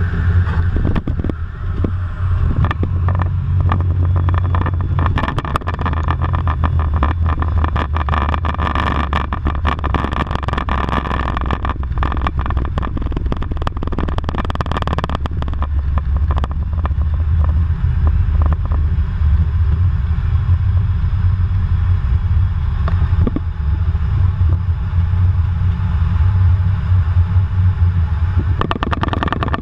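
Cockpit noise of an RAF Eurofighter Typhoon rolling down the runway after landing: a steady low rumble from the twin jet engines and airframe, with a patter of clicks and rattles through the middle. A higher whine fades about halfway and comes back near the end.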